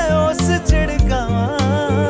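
Background music: a Hindi love song with a steady bass beat under a wavering melody line.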